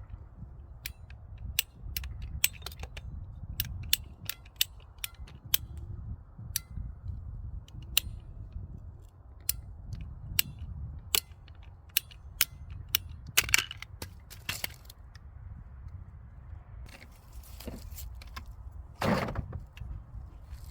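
Hand PVC cutter clicking in repeated sharp snaps, about one or two a second, as it works through a PVC connector on a garden water line, with a louder crunch near the end.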